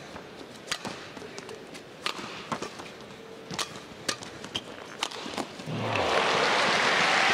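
Badminton rally: a string of sharp racket strikes on the shuttlecock with players' footfalls on the court. About six seconds in, the rally ends and the arena crowd breaks into loud applause that keeps building.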